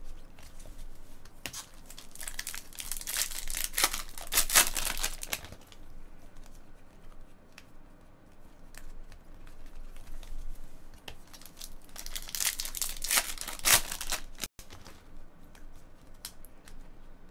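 A stack of glossy chrome baseball cards being flipped through by hand, the cards sliding and rustling against one another. The rustling is loudest about two to five seconds in and again about twelve to fourteen seconds in.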